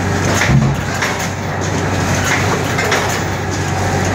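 VFFS powder packaging machine with screw conveyor and auger filler running: a steady low motor hum under a regular mechanical beat of sharp strokes, a little more than once a second, with one heavier thump about half a second in.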